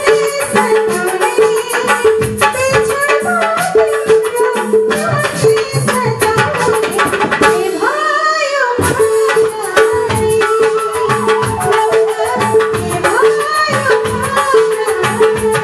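A woman singing a Nepali folk dohori song live through a microphone, over a steady drum beat and other instruments. Near the middle the drum drops out briefly under a long, wavering held note, then the beat comes back in.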